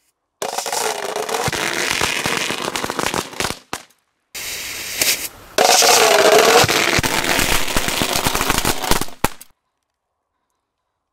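A 1000-shot Klasek flash-powder firecracker chain going off inside a closed steel ammo can as a dense, rapid crackle of bangs. It breaks off briefly after about three and a half seconds, starts again louder, and stops a couple of seconds before the end.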